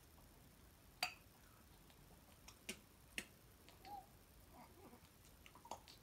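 Near silence with a few sharp, sparse clicks and a faint short chirp about four seconds in, from an African grey parrot on its perch.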